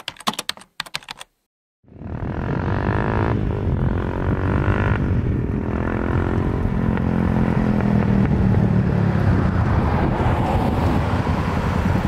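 A quick run of sharp clicks, a moment of silence, then a motorcycle engine running as the bike approaches, growing louder.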